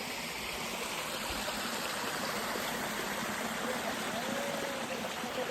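Stream water running steadily, with a couple of faint, brief whistled tones near the end.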